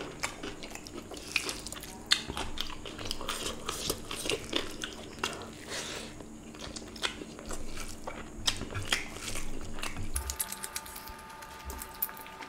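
Close-miked chewing and biting of a man eating rice and meat curry by hand: wet mouth sounds with irregular crunchy bites.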